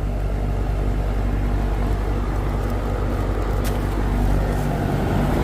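Air-conditioner condensing unit running with a steady low hum, still running with one wire pulled off its compressor contactor.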